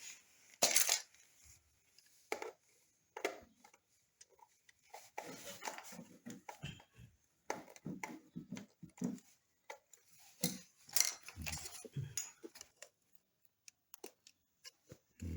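Irregular metallic clicks, clinks and scrapes of a screwdriver working the long screws holding an old double wall socket to the wall.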